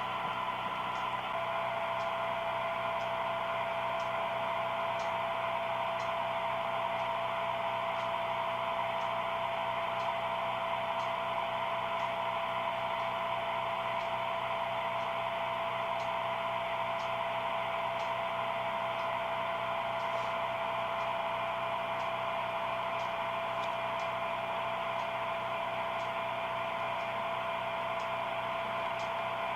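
HO-scale model train running: a steady small-motor whir with faint light clicks about once a second.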